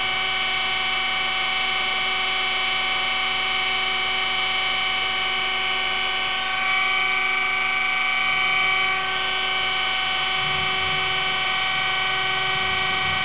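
Surface grinder's wheel spindle and electric centers running with a steady, many-toned whine as the wheel takes a light skim pass across a hardened steel drill bushing turning on a mandrel. About six seconds in, a grinding hiss rises for a couple of seconds, then falls back.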